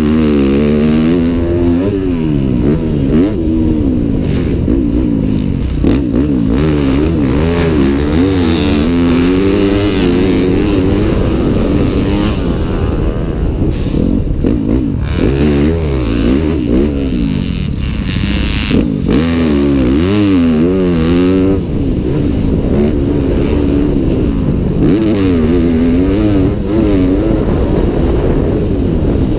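2015 Yamaha YZ250F four-stroke single-cylinder motocross engine with a full FMF titanium exhaust, heard from the rider's helmet while racing round a track. The revs rise and fall again and again as the rider opens and rolls off the throttle and shifts through corners and straights.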